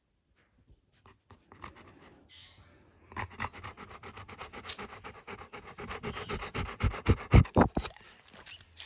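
A frightened dog panting fast and hard, about five breaths a second. The panting starts some three seconds in and grows louder, with a few heavy low thumps near the end.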